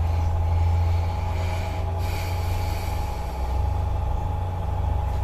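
Steady low mechanical hum with fainter steady tones above it, unchanging throughout.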